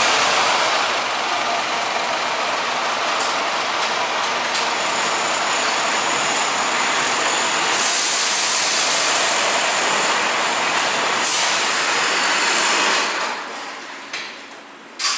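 High-pressure water spray hissing steadily against a truck's chassis, growing brighter for a few seconds and dying away near the end.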